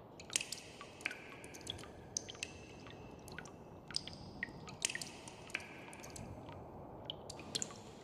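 Meltwater dripping from melting ice: many irregular drops, each a short, high plink.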